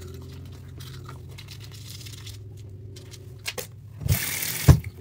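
Manual toothbrush scrubbing teeth, quiet, over a low steady hum. About four seconds in comes a short, loud rush of noise with a couple of thumps.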